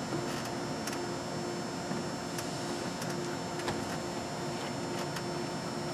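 Steady room hum and hiss with a few faint, sharp clicks and taps as a plastic wall panel is handled and fitted into its trim.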